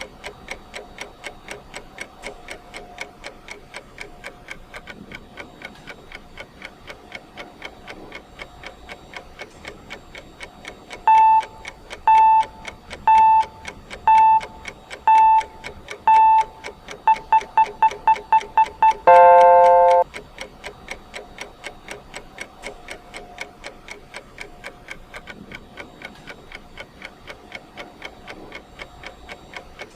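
Clock ticking steadily as a countdown timer's sound. About eleven seconds in, six loud electronic beeps come a second apart, then a quick run of faster beeps and one long, lower beep that marks the timer's one-minute point. The plain ticking then resumes.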